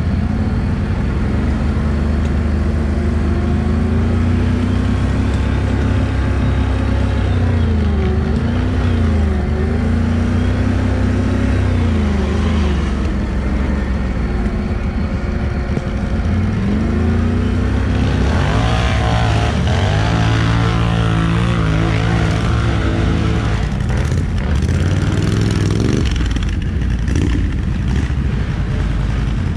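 ATV engine running hard off-road, its pitch rising and falling again and again as the throttle is worked.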